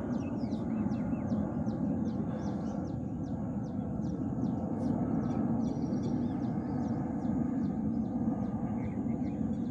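Outdoor ambience: a steady low rumble, with a short high chirp repeated about three times a second.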